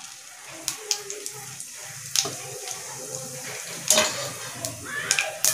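Whole spices and small seeds sizzling in hot oil in a kadai, with sharp pops every so often as the seeds start to crackle: the tempering stage of the dish.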